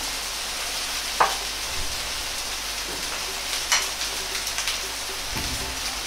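Yakisoba noodles frying in a tablespoon of hot oil in a Chinese wok: a steady sizzle, with two sharp crackles, about a second in and just under four seconds in.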